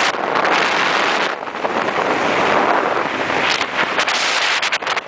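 Wind rushing hard over the microphone of a camera carried on a moving motorcycle at highway speed. The loud noise surges and dips, with sharp crackles of buffeting in the second half.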